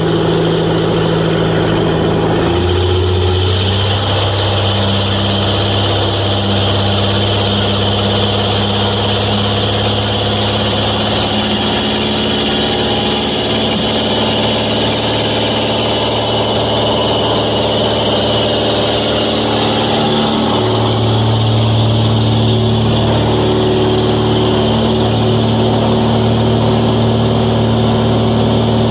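The 180-horsepower engine and pusher propeller of a Velocity S-FG running steadily at high power during the takeoff roll, heard from inside the cabin. The engine note shifts about two and a half seconds in and again about twenty seconds in.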